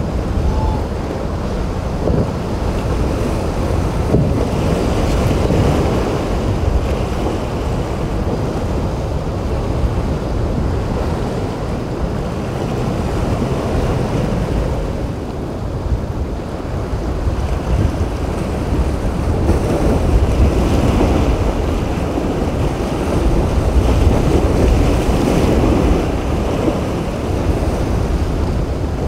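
Wind buffeting the microphone over the rush of surf, swelling and easing every few seconds.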